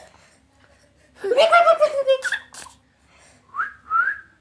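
A toddler's high-pitched squealing laugh about a second in, followed near the end by two short rising squeaks.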